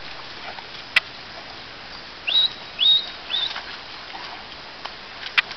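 A bird calling three times in quick succession, each a short whistled note that rises and then levels off, about half a second apart. Two sharp clicks, about a second in and near the end, over a steady background hiss.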